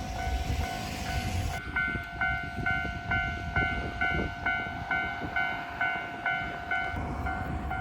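Japanese railway level-crossing warning bell ringing its rapid electronic "kan-kan" of about two and a half strokes a second, over the low rumble of a train.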